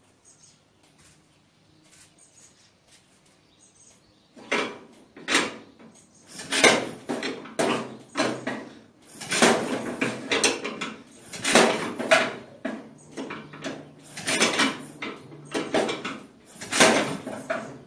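1949 Farmall Super A engine being cranked over on full choke, not yet firing, in repeated uneven bursts of knocking and rattling that begin about four seconds in. The slow start is down to fuel taking time to reach the cylinders, not flooding.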